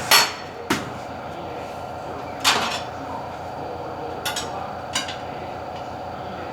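Metal clanks and knocks from tyre-changing work: about five sharp hits spread irregularly over a steady machine hum.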